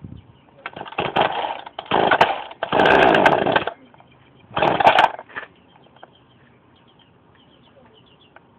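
Poulan Wild Thing two-stroke chainsaw being pull-started cold on choke: four pulls on the starter cord, the engine turning over without catching.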